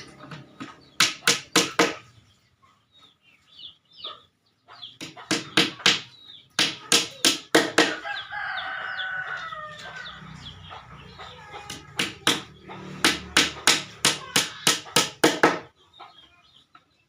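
Hammer blows in quick runs, several strikes at a time, typical of nailing together a wooden shelf. A rooster crows about 8 seconds in, between the runs.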